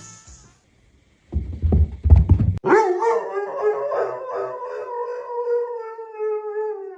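A second of low, noisy thumps, then a dog howling in one long, steady call lasting about four seconds that sags slightly in pitch near the end.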